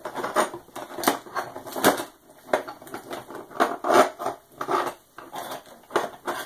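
Irregular clicks and knocks of small metal tools and parts being handled on a wooden desk, a sharp tap every half second or so.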